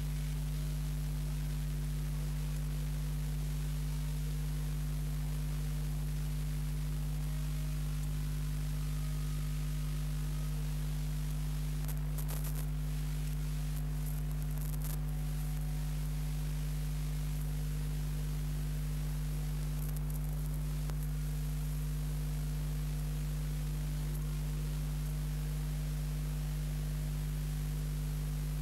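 Steady electrical mains hum with its overtones over a faint hiss, the bare soundtrack of a silent film transfer; a few faint brief crackles come and go.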